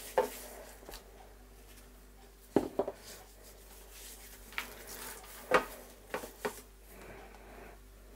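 Gloved hands rubbing dry spice rub into a raw pork neck in a stainless steel tray, with sharp knocks of the meat and hand against the metal tray as it is worked and turned over. A short soft hiss near the end as more rub is shaken on.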